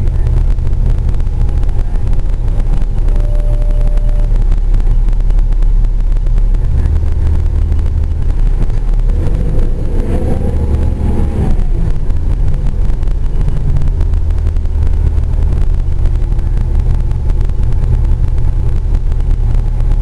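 Gillig transit bus under way, heard from inside the passenger cabin with no HVAC running: a steady low engine and road drone that shifts in pitch a few times. About halfway through, a whine rises and then falls over a second or two.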